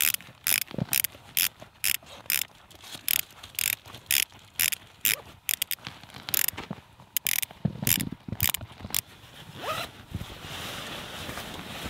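Zipper pulled open in a quick series of short rasping tugs, about two a second, then a steady rustling hiss near the end.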